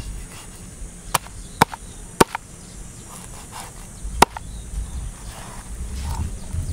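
Cleaver chopping through a large fish onto a wooden chopping block: four sharp chops, three in quick succession about a second in and a last, loudest one after about four seconds.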